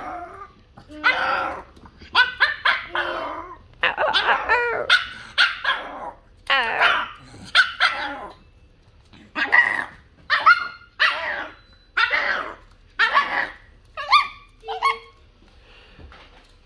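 Pomeranian giving a long string of whining, yowling barks, about a dozen short calls one after another that rise and fall in pitch, stopping shortly before the end. It is the dog complaining at being left alone for too long.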